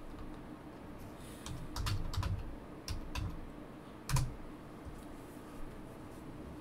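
Computer keyboard typing: a scatter of quick key clicks over about three seconds, ending with one louder click about four seconds in as the search is entered.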